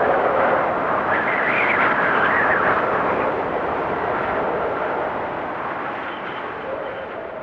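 A loud rushing roar that fades away gradually over several seconds.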